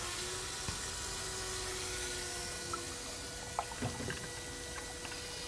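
Coolant rushing through the inverter cooling system of a second-generation Toyota Prius, circulated by the inverter coolant pump: a steady watery hiss with a faint steady hum under it. A few light clicks come a little after three and a half seconds in.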